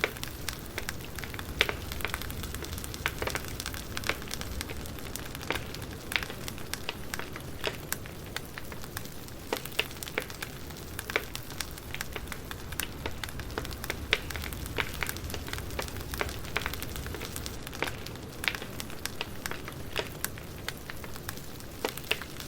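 Campfire burning: wood crackling with irregular sharp pops over a steady hiss and a low rumble of the flames.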